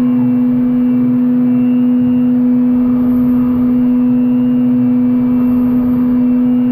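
Okuma MU400 VII five-axis machining center's spindle running at a steady speed with a strong steady hum, while a CoroDrill 860-NM drill bores into aluminium under coolant spray.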